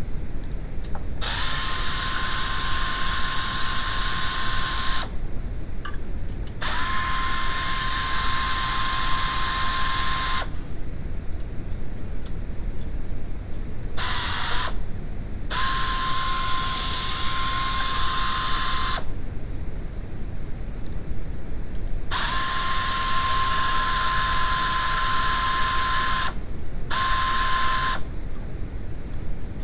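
Drill-type power tool motor running in repeated bursts of about three to four seconds, each spinning up briefly to a steady whine, with short pauses between, over a steady low rumble.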